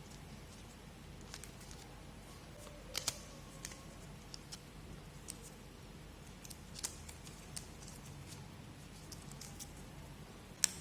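Scattered faint clicks and taps of a phone's retail box being opened and handled, over low room hiss.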